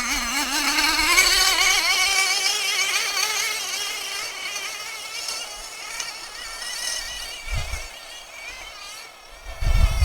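Small two-stroke engine of a pull-start RC car running with a wavering buzz, its pitch climbing over the first few seconds, then growing fainter. A couple of low thumps near the end.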